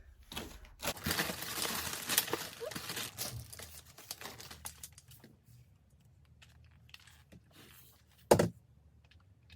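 Plastic packaging crinkling and rustling as baby-swing parts are handled, densest in the first few seconds, then a single sharp knock near the end.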